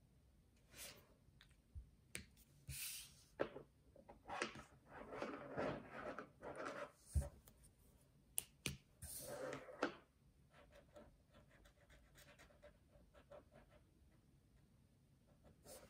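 Felt-tip brush markers being handled: rustling and sharp clicks of pens and caps as markers are swapped and one is uncapped, the loudest click about seven seconds in. After that come faint strokes of a marker tip on paper.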